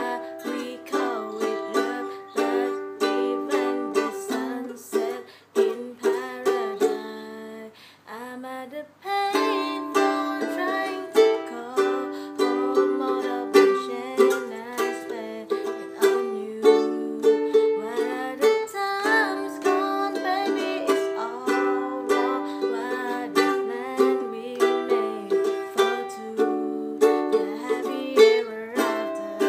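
Ukulele strummed in a small room, working through the Cadd9, G, Em and D chords of the song's progression. The playing thins out and goes quiet about six to nine seconds in, then full strumming picks up again.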